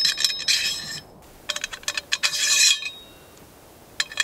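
Steel carriage bolts scraping and clinking in the slot of an aluminium chainsaw-mill rail as they are fitted, in two spells of metallic rattling about half a second apart, with a few more clicks near the end.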